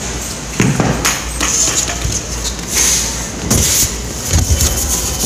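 Handling noise from a phone being carried while walking: irregular rustling and several knocks as the microphone rubs and bumps, over a steady low hum.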